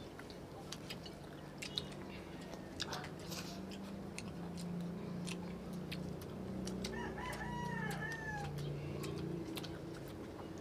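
A rooster crowing in the background, its arching calls heard about seven to eight seconds in. Under it run a low steady drone and scattered light clicks and taps of people eating at the table.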